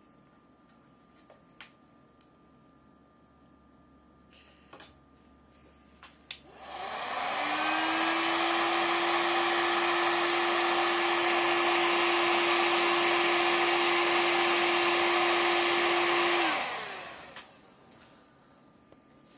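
A few light clicks and taps, then a small electric tool's motor spins up about six seconds in. It runs steadily with a whine for about nine seconds and winds down near the end.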